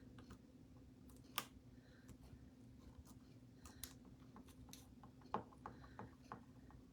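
Faint scattered clicks, taps and light scrapes from hands working a chalk-paste transfer on a chalkboard, with two sharper clicks about a second and a half in and near the middle. A faint steady hum runs underneath.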